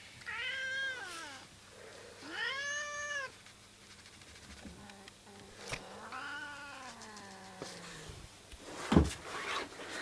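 Domestic cat meowing three times: two short rising-and-falling meows, then a longer, lower, drawn-out yowl, the call of a cat being annoyed. About nine seconds in, a loud thump.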